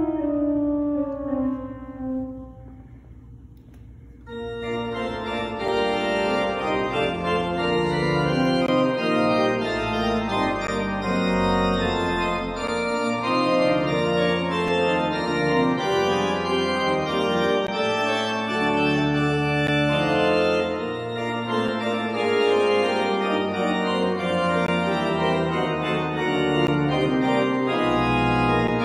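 Organ music, many notes sounding together, begins about four seconds in and carries on steadily, after a tone sliding down in pitch fades away in the first two seconds.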